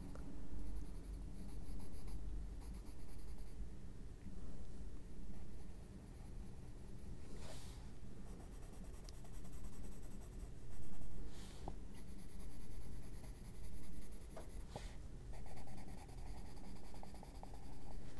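Faber-Castell Albrecht Dürer watercolour pencil scratching across the paper of a colouring book in repeated shading strokes, swelling and fading about once a second, with a few brief louder scrapes.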